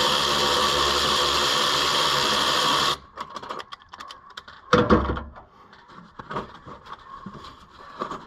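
A power tool's motor runs steadily and stops abruptly about three seconds in, followed by one loud knock and light clicks and rattles of tools and parts.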